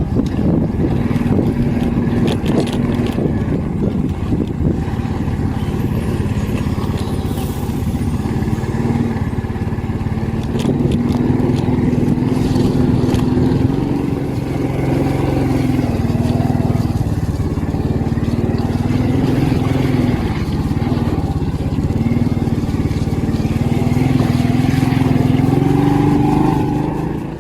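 Engine running loudly, its pitch rising and falling again and again as it revs up and eases off.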